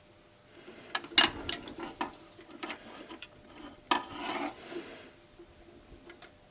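Metal hand tools clicking and scraping on the timing belt tensioner roller of a VAZ 8-valve engine as the roller is levered round to re-tension the belt. There are two bouts, about a second in and about four seconds in.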